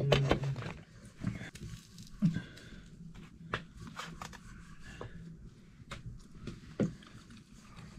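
Soft, scattered clicks and taps of someone eating by hand from a steel plate: roti being torn and dipped into saag, and chewing. A faint low hum runs underneath.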